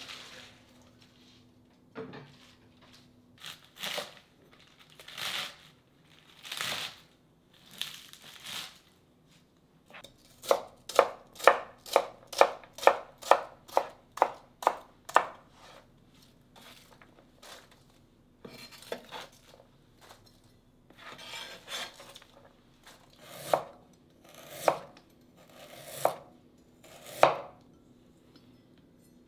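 Kitchen knife chopping napa cabbage on a cutting board: slow, spaced crunchy cuts at first, then a run of quick even strokes, about two or three a second, from about ten seconds in to fifteen. Near the end come a few slower single knife strikes.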